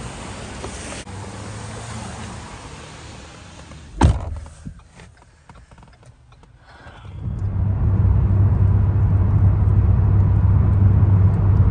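A car door shuts with a single thump about four seconds in. After a quieter moment, the car's engine and tyre noise rises and then holds steady, heard from inside the cabin as it drives on the highway.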